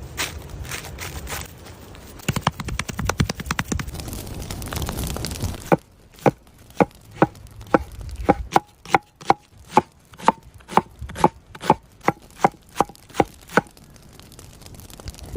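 Knife chopping food on a cutting board. About six seconds in, it settles into sharp, evenly spaced strokes, roughly two a second, each with a short ring, ending near the end. Before that come quicker, lighter cuts and handling sounds over a low rumble.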